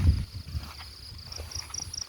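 Frogs calling after rain: a chorus of short, high, rattling calls repeating several times a second, with a low thump right at the start.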